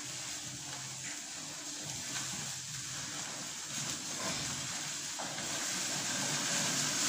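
Food sizzling on a barbecue grill: a steady hiss that grows a little louder near the end.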